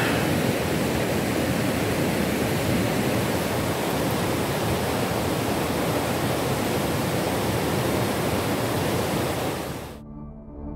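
Whitewater river rapids rushing over rocks, a steady, even roar of water that fades out near the end.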